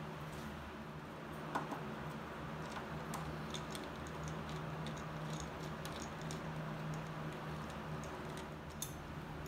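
Irregular light clicks and ticks of a hand screwdriver with a T25 Torx bit turning out the screws of a motorcycle fuel-tank console. A sharper click comes about one and a half seconds in and another near the end, over a steady low hum.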